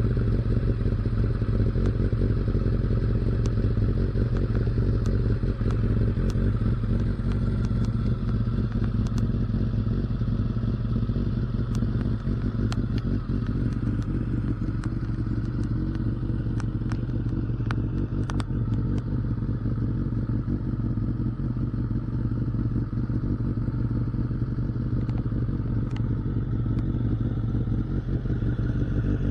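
Kawasaki ZZR1100's inline-four engine idling steadily through a cheap aftermarket slip-on silencer, with a deep, even exhaust note that holds a constant engine speed throughout.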